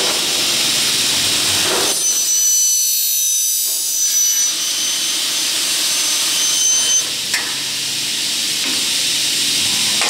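Automatic aluminium-profile cutting saw at work, a steady loud hiss throughout. From about two to seven seconds in a high-pitched whine rides over it as the blade cuts through the aluminium profile.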